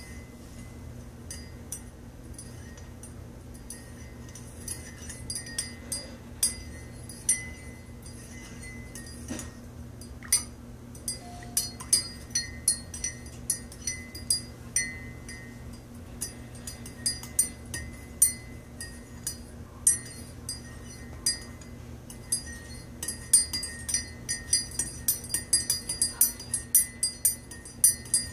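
A metal spoon stirring coffee in a ceramic mug, clinking against the inside of the mug in irregular taps that come more often in the second half.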